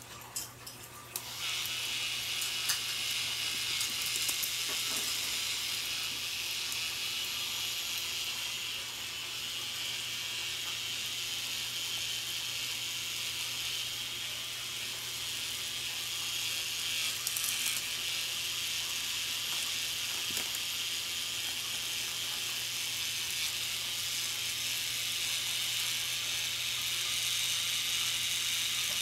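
A K'NEX battery motor switched on about a second in, running steadily with a high whir and clatter as its plastic gears drive the K'NEX chain-link conveyor belt.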